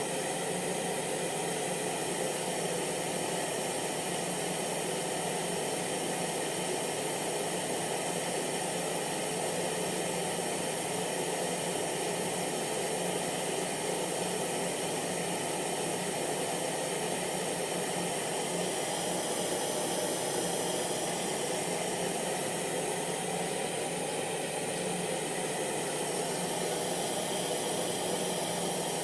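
Hair dryer running continuously at a steady pitch, a constant whooshing airflow with a faint motor hum.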